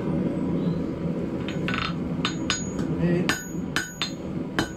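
Blacksmith's hammer striking hot round steel bar over the horn of an anvil, drawing the bar out thinner. The sharp ringing blows begin about a second and a half in and come about two a second over a steady background hum.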